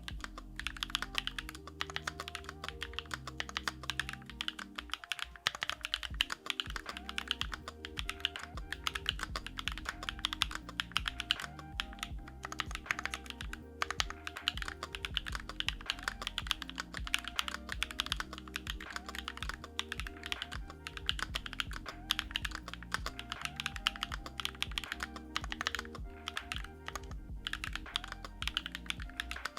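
Continuous fast typing on a Sakura Studio Fuji 65 mechanical keyboard with factory-lubed JWK Night Sakura switches in an aluminium plate, with Poron plate foam and JTK Night Sakura keycaps. Background music plays underneath.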